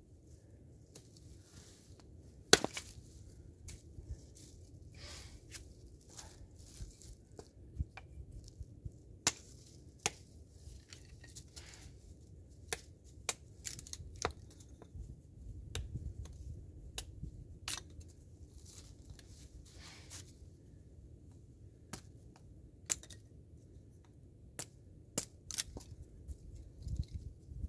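Knife splitting and working dry wood on a stump: irregular sharp cracks and knocks as the wood splits into kindling sticks, with softer scraping of the blade between them.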